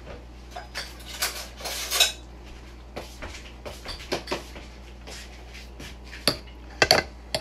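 Serving utensil clinking and scraping against a steel cooking pot as spaghetti is lifted out onto a plate. The clinks are irregular, with a few sharper ones near the end.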